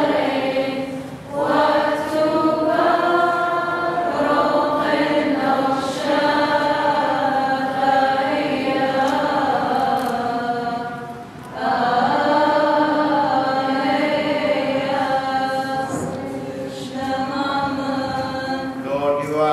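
A group of voices chanting a liturgical hymn together in long held notes, with two short pauses for breath, about a second in and about eleven seconds in.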